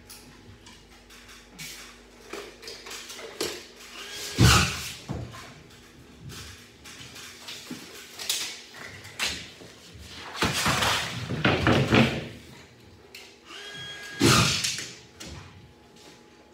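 Drywall work: a few heavy thumps and scraping, loudest about four and a half seconds in, in a longer cluster around eleven to twelve seconds, and again near fourteen seconds.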